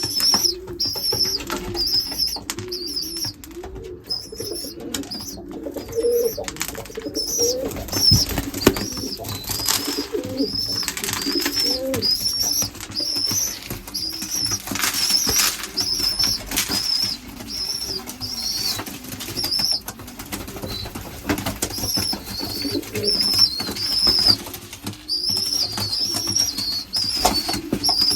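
Young racing pigeons in a loft: wings flapping and clattering again and again, with low cooing and a high peep repeated about once a second.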